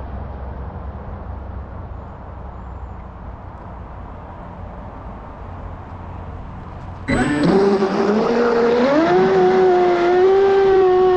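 For about seven seconds there is a steady low rumble, like wind or water. Then the Pro Boat Sonicwake V2 36's brushless motor suddenly comes in loud with a high-pitched whine at speed. The whine steps up in pitch about a second later and holds steady.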